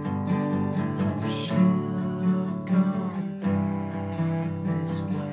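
Music: an acoustic guitar strummed in a steady chord pattern, with no singing heard.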